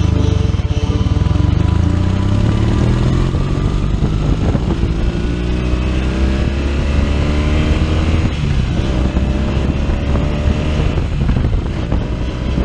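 Touring motorcycle engine accelerating, its pitch rising steadily for several seconds. About eight seconds in the pitch drops, then the engine pulls on again.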